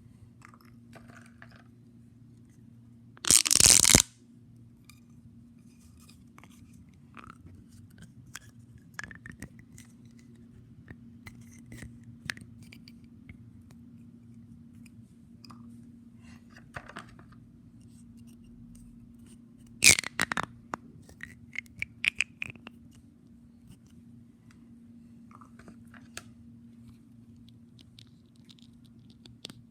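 Fidget toys being handled: scattered small clicks and crackles over a low steady hum, with two loud, short scratchy sounds, one a few seconds in and one about two-thirds of the way through.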